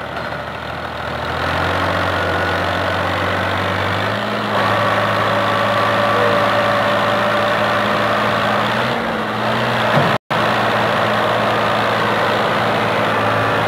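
Fiat 480 tractor's diesel engine working hard to tow a truck out of a ditch. The revs step up about a second and a half in and again around four and a half seconds, then hold steady. The sound cuts out for a split second about ten seconds in.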